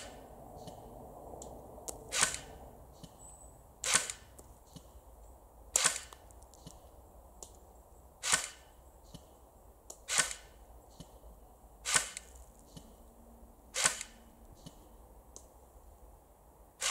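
Snow Wolf SW-02A CQB airsoft electric Barrett M82A1 replica firing single shots in a slow test string, with about eight sharp reports, roughly one every two seconds. Fainter small ticks come between the shots.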